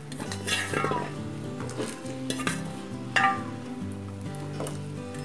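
Cauliflower florets dropped into a pan of hot water, giving a few short splashes and clatters, over background music with a steady low bass line.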